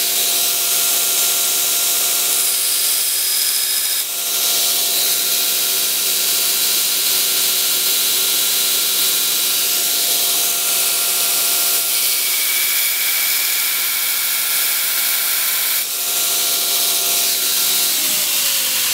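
Belt grinder running with a steady motor whine while a steel knife blade is pressed against the abrasive belt, a loud continuous hiss of steel being ground as the front bevels of a tanto are shaped. The grinding noise breaks briefly twice, about four seconds in and again near sixteen seconds, and near the end the motor's whine falls in pitch as it winds down.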